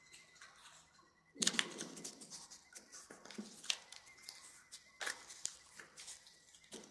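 Origami paper rustling and crinkling in short soft bursts as hands flatten and crease its folded flaps against a tabletop; the loudest rustle comes about a second and a half in.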